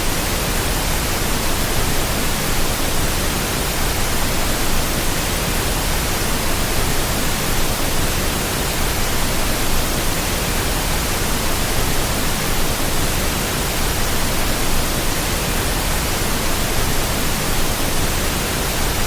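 Flowing water in a forest stream, a steady, even rushing hiss with no changes.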